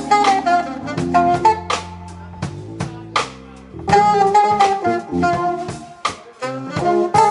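Live jazz quartet playing: a saxophone melody over electric bass and drum kit. The saxophone plays phrases at the start and again about four seconds in, with a quieter stretch between them, while the drums keep up a busy beat.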